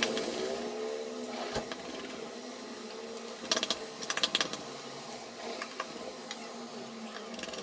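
A quick run of small, sharp plastic clicks about halfway through, from the Samsung Galaxy Note 2's plastic mid-frame and housing being pressed and snapped into place, with a few lighter clicks elsewhere. A steady hum runs underneath.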